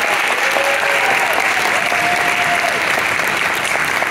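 Audience applauding steadily, a dense, even clapping from a large crowd.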